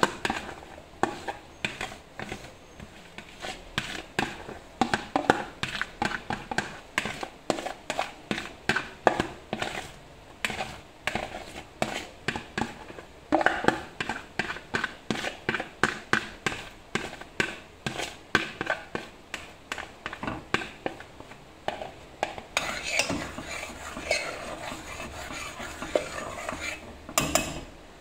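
A spatula scraping and knocking against the inside of a plastic bowl in quick repeated strokes, two or three a second, as the mixture is scraped out into a steel pot. Near the end the strokes give way to a softer, continuous scraping.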